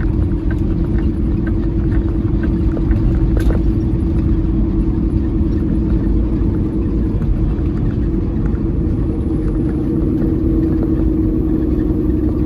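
Steady drone and rumble of a semi truck's diesel engine and road noise, heard from inside the cab while driving. A faint, evenly spaced ticking runs through the first few seconds.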